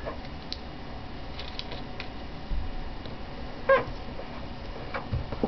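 Sheet of paper being folded and creased by hand: soft rustles and light taps. One short pitched call, like a brief squeak or meow, rises above it a little past halfway.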